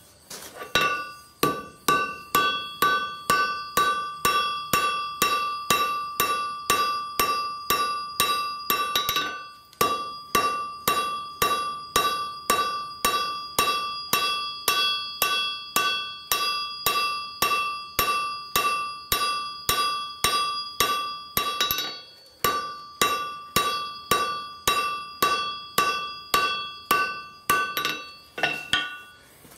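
Blacksmith's hammer striking a red-hot file on an anvil, about two blows a second, each blow leaving the anvil ringing with a clear bell-like tone. The hammering pauses briefly about ten seconds in and again a little past twenty seconds.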